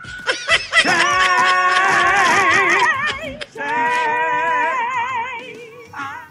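A woman singing into a microphone, holding two long notes with wide vibrato, the second starting about halfway through.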